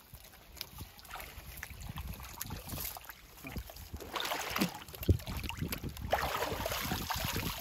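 Small wet fish shifting and slapping in a plastic crate as it is shaken and moved by hand, with irregular knocks of the crate and splashes of water.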